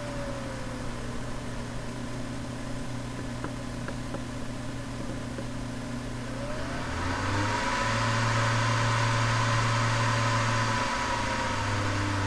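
CPU cooler fan of an AMD processor's PC, settling to a slow, quiet whir just after the start. About six and a half seconds in it speeds up again with a rising whine and a louder rush of air, then runs steadily at high speed.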